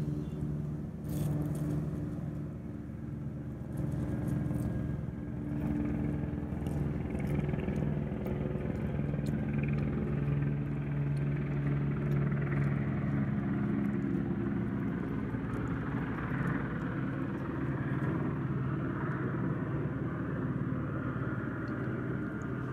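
A motor running steadily with a low hum, with faint scattered crisp clicks of a cat chewing on a rat.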